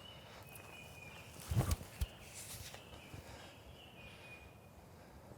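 A disc golf throw from awkward footing: a thump of the player's footwork about a second and a half in, then a single sharp click. Faint, high, steady calls of wildlife sound in the background.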